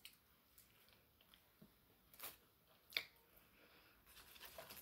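Near silence: room tone, with two faint clicks in the middle and a soft rustle near the end.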